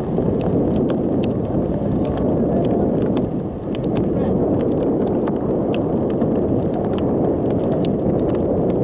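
Wind buffeting the camera's microphone: a steady low rumble with a brief dip about three and a half seconds in, scattered with many faint, irregular light ticks.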